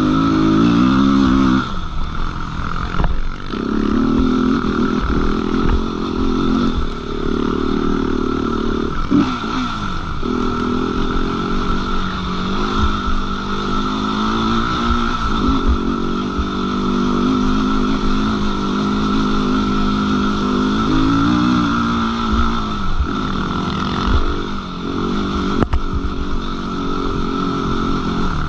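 Suzuki LTR 450 quad's single-cylinder four-stroke engine running under throttle while riding, its pitch rising and falling several times as the rider opens and closes the throttle and shifts.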